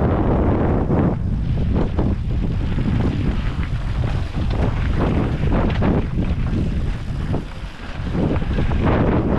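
Wind rushing over the camera microphone as a mountain bike descends a dirt trail, with tyre rumble and frequent knocks and rattles from the bike over bumps.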